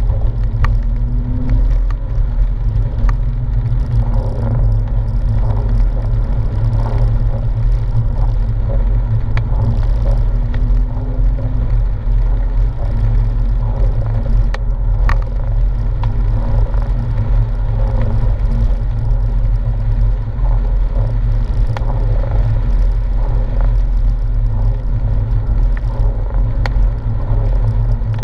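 Porsche 997 on the move, heard from inside the cabin: a steady low drone of its flat-six engine mixed with tyre noise on a wet road, with a few faint clicks.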